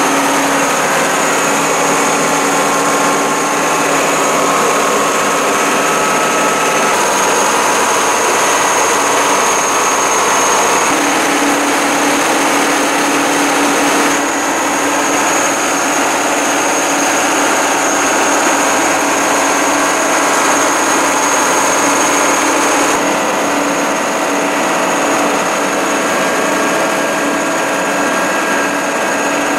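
Sea tractor's engine running steadily as it drives through the sea, with a constant high whine above the engine note.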